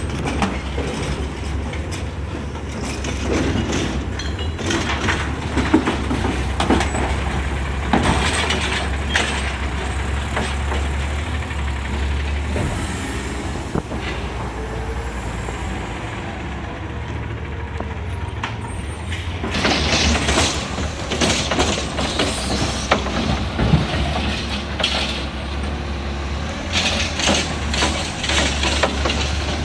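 Garbage truck's engine running steadily, with repeated bursts of clatter and hiss from the automated side loader and brakes as it works through carts.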